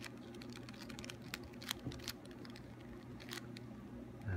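Mini 3x3 puzzle cube from Party City being turned by hand during a solve: irregular sharp plastic clicks as its layers are twisted.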